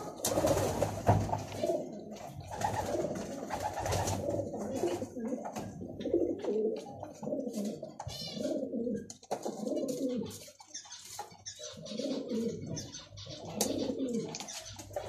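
Domestic racing pigeon cooing: low, rolling coos repeated over and over, about one every second or two.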